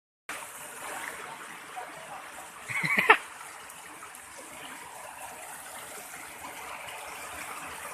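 Stream water flowing steadily, starting abruptly a moment in. A brief, louder splashy burst comes about three seconds in.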